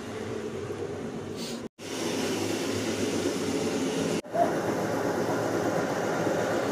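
A machine running with a steady hum, broken by two abrupt cuts, one under two seconds in and one about four seconds in. After the second cut it is an electric household flour mill (chakki) grinding grain.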